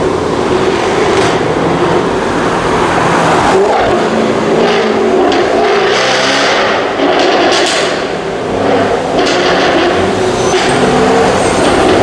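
Jaguar F-Type R's supercharged 5.0-litre V8 exhaust revving and accelerating hard in several pulls, rising and falling in pitch.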